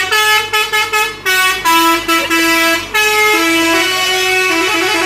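A buzzy, horn-like tone playing a short tune, with a few quick notes and then longer held notes stepping up and down in pitch, like a musical car horn.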